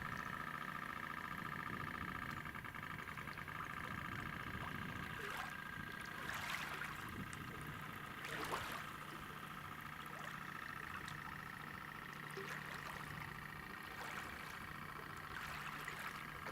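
Radio-controlled model tugboat's motor running with a steady whine, over faint water sounds.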